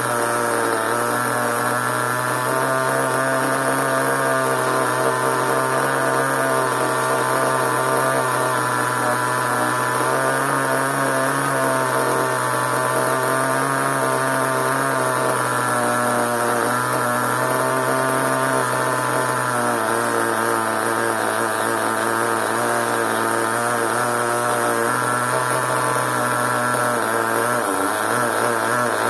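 Small nitro glow engine of a CEN RC monster truck running steadily at a fairly constant speed, its pitch dropping slightly about twenty seconds in and wavering near the end.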